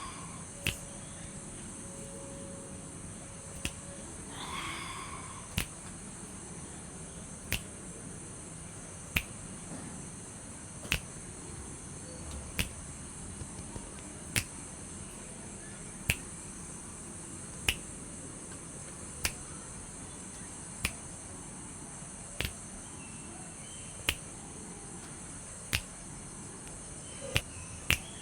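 Night nature ambience: a steady high-pitched insect chorus over a low even hiss, cut by a sharp click about every second and a half to two seconds, with a short call about four and a half seconds in.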